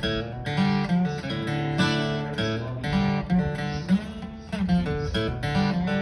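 Solo steel-string acoustic guitar playing an instrumental break in a country song, with chords and notes struck in a steady rhythm.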